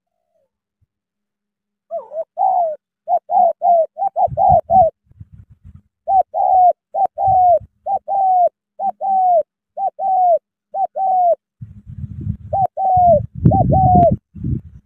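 Spotted dove cooing in quick runs of short, arched notes, the repeated song of a male decoy bird displaying, starting about two seconds in. A low rumbling noise comes and goes beneath it and grows louder near the end.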